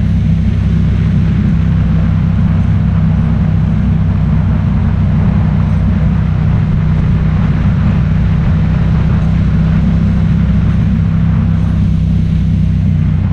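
A vehicle engine running at a steady speed: a constant low drone under a steady hiss of wind or road noise, with no change in pitch.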